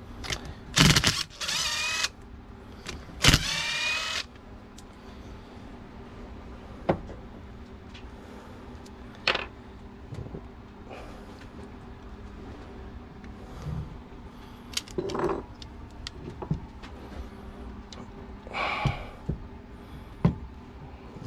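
Hand work on car parts: scattered clicks and clinks of metal parts and tools, with two loud, squeaky, rasping sounds about a second long near the start, over a steady low hum.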